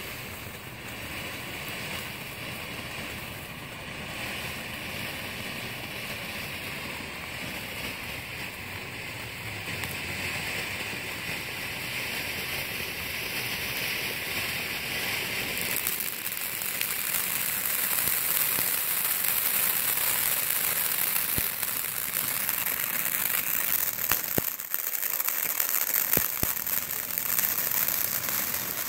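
Black Cat 'Big Cat' ground fountain firework spraying sparks, a steady hiss with crackle. It grows louder and sharper about halfway through, with a few sharp pops near the end.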